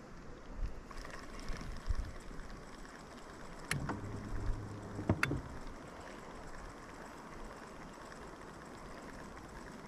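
Quiet ambience on a small fishing boat on a river, with two sharp clicks about a second and a half apart near the middle and a brief low hum between them.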